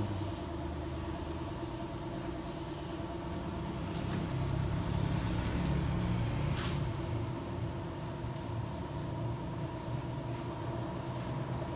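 A large vehicle engine running steadily, a little louder in the middle, with a short hiss of air about two and a half seconds in and a brief second hiss near seven seconds.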